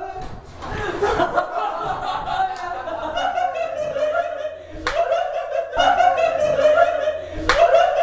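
A person's high, wavering voice in long drawn-out sounds, with a few sharp clicks about five and seven and a half seconds in.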